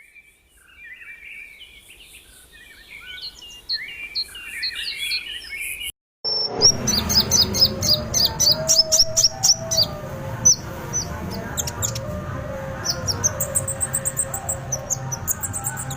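Kolibri ninja (a sunbird) singing in quick, high chirps and twitters. About six seconds in it breaks off briefly, then comes back louder as a fast, higher-pitched run of chirps over a low background hum.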